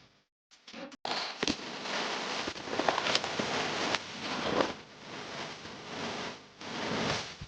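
Crunching and scraping of footsteps on loose stones and snow on a mountain trail, with many sharp clicks and rustling. It starts after a brief silence about a second in.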